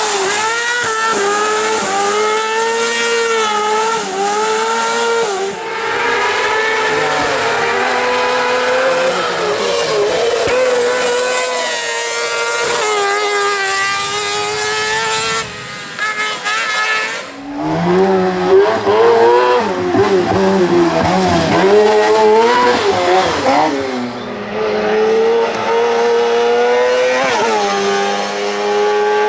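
Motorbike-engined racing buggy running flat out, the engine revving high and dropping back again and again as it shifts gears. It fades briefly about halfway through, then comes back louder.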